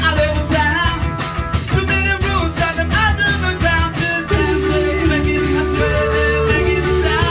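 A live rock band playing: electric guitar, bass guitar and drums with a steady beat, and a man singing into a microphone.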